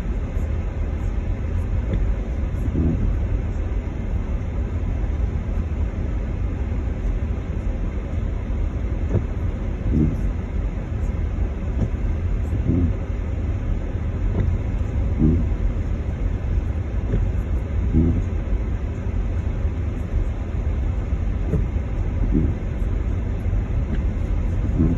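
Car moving slowly through floodwater about 6 to 8 inches deep, heard from inside the cabin: a steady low rumble of engine and tyres in water, with a short dull thump every few seconds.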